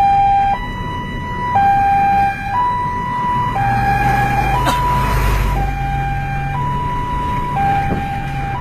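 Vietnamese police siren sounding a two-tone hi-lo wail, switching between a lower and a higher note about once a second. A low hum and a brief rush of noise swell up about halfway through.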